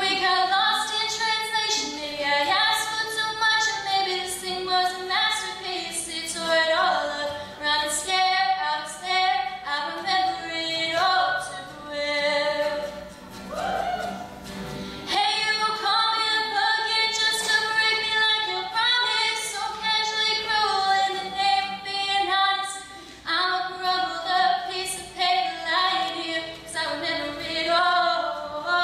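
A young woman singing a slow song, holding long notes that bend and slide in pitch.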